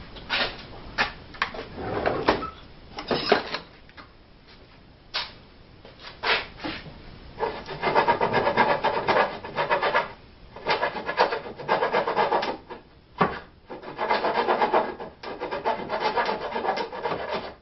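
Glued-on paper labels being scraped off the end of a wooden 2x4 with a blade. The scraping comes in short, scattered strokes at first, then in longer runs of quick back-and-forth strokes.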